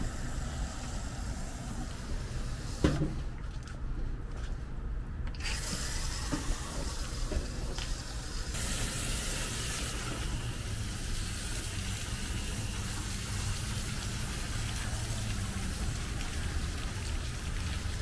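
Garden hose spraying water onto a foam-covered microchannel condenser coil, rinsing cleaner and packed grit out of the fins. A steady hiss of spray whose tone shifts as the stream moves across the coil, over a steady low hum.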